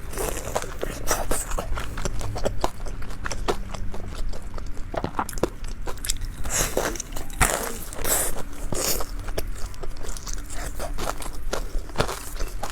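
Close-up biting and chewing of a deep-fried glutinous rice ball with meat filling, with many short, sharp crunches of the fried crust.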